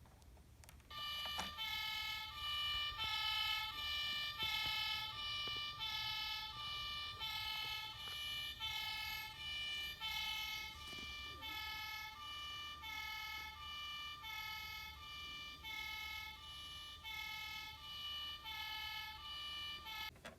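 Toy truck's electronic two-tone siren, alternating steadily between a high and a low note, starting about a second in and cutting off near the end.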